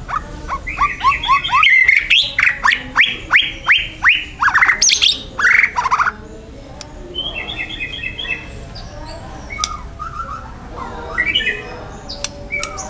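White-rumped shama singing: a loud, fast run of quick downward-sweeping whistled notes for about the first six seconds, then softer chattering phrases.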